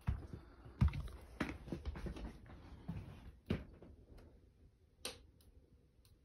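Footsteps and small knocks, irregular light clicks roughly every half second for the first few seconds, the loudest about a second in, then sparser, with the close sound of a small room.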